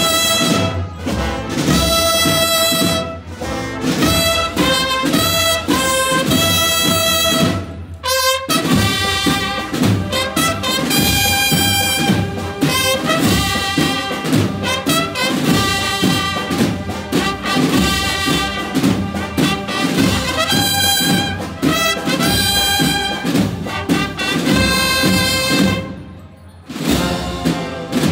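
Marching band of trumpets and drums playing a march in the street. The brass holds sustained, bright notes over a steady drum beat, with a short break about eight seconds in and a softer passage shortly before the end.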